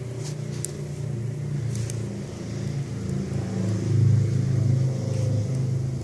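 Kiln-dried kindling burning hard in a metal fire-pit bucket: a steady low rumble that swells about four seconds in, with a few sharp crackles and pops from the wood.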